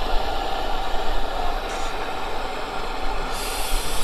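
Blowlamp running with a steady roar as its flame heats the hot-bulb of a Lanz Bulldog engine, the preheating needed before the engine will start. A sharper hiss comes in near the end.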